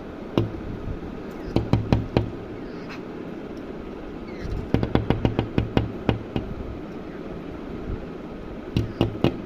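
Sharp knocks coming in quick bursts of several strokes, with pauses between the bursts, over a steady background hiss.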